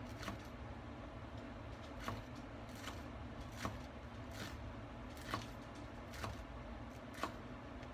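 Kitchen knife slicing green onions on a cutting board: about eight separate chops, roughly one a second, each a sharp knock of the blade on the board, over a steady low hum.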